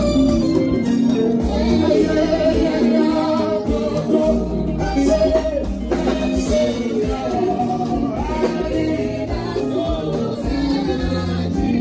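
Slow gospel highlife played by a live band through amplifiers, with bass guitar and keyboard under amplified singing into microphones.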